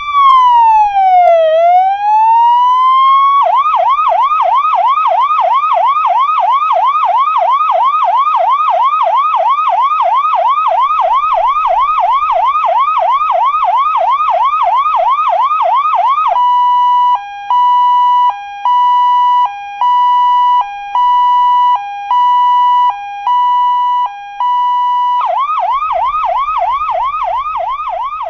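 Emergency-vehicle siren sound effect running through its modes. It opens with a slow wail that falls and rises again. About three seconds in it switches to a fast yelp warbling about three times a second. Past the middle it becomes a steady tone broken about once a second by a short lower note, and near the end it returns to the fast yelp.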